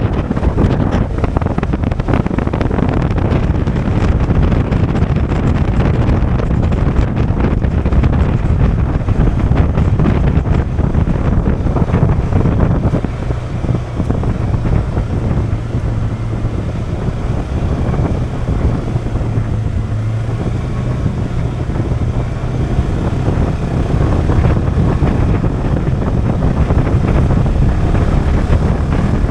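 Polaris 570's single-cylinder engine running steadily under way on a trail, with wind buffeting the microphone.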